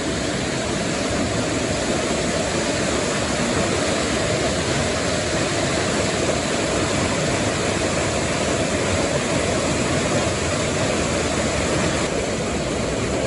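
Floodwater from a creek that has jumped its banks rushing and pouring over a concrete bridge: a loud, steady roar of water.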